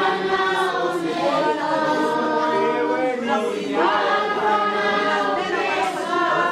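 A group of voices singing without instruments, in long held notes.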